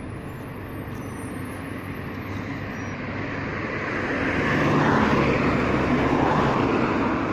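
A bus approaching and passing: engine and road noise build steadily, loudest about five seconds in with a low engine hum, then ease off slightly.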